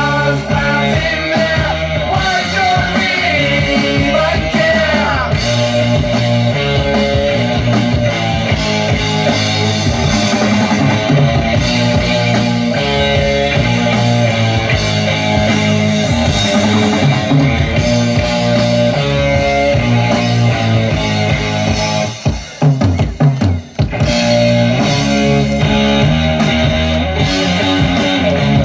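Loud rock music with a drum kit and guitar, with a brief stuttering break about 22 seconds in.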